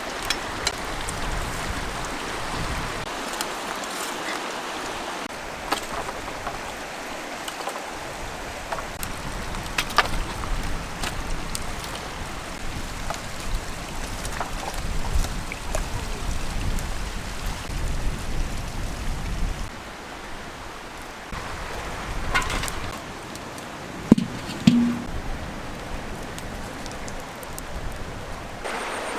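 Water running and splashing steadily, with scattered sharp knocks and taps throughout.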